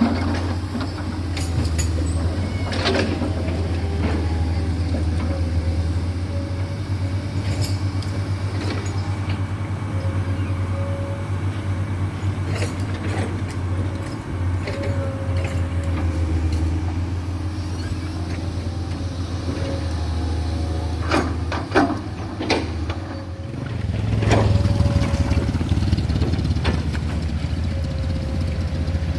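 Heavy diesel engine running steadily, with scattered sharp metallic knocks and clanks. About three-quarters of the way through, a few louder knocks come, then the engine works harder and grows louder.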